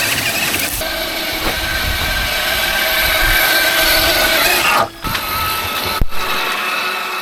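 Radio-controlled off-road car driving, its motor and gears whining over a loud rushing noise. The sound drops out suddenly for a moment about five seconds in and again about six seconds in.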